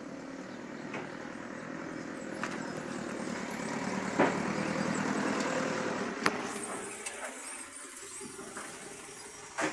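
A motor vehicle's engine passing by, growing louder to a peak about halfway through and then fading away, with a few sharp clicks or knocks along the way.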